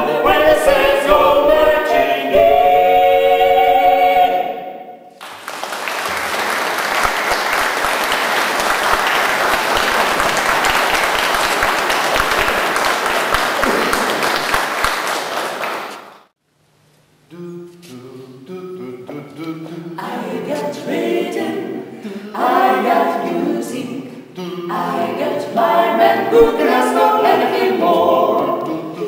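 Five-voice mixed a cappella vocal group finishing a song on a held chord, followed by about ten seconds of audience applause that cuts off suddenly. After a brief gap the group begins another a cappella song, quietly at first and then fuller.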